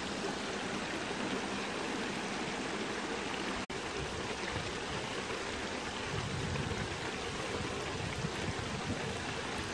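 Small stream running over a low rock ledge into a pool: a steady rush of water.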